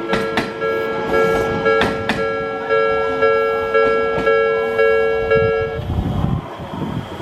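Japanese railway level-crossing warning bell ringing in even electronic strokes, about two a second, then stopping abruptly about six seconds in as the crossing clears. A few sharp clacks sound in the first two seconds.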